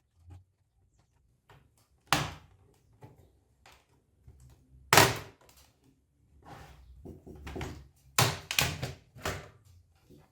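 Plastic clicks, snaps and knocks as the tightly fitted bottom cover of an Acer Aspire 515-52 laptop is pried off its clips. The sharp knocks are scattered, the loudest about halfway, with a quick cluster near the end.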